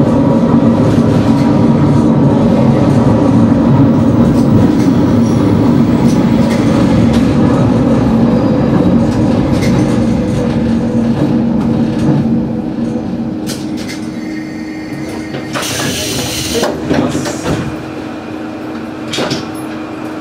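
Diesel railcar running, with its wheels rumbling on the track and a steady engine hum, slowing into a station and coming to a stop. The running noise dies down over the second half, with a short burst of hissing about sixteen seconds in.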